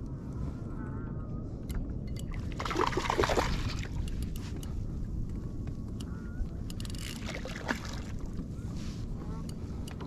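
Hooked fish splashing at the surface beside a kayak, in two louder bursts about three and seven seconds in, over steady water slapping against the hull.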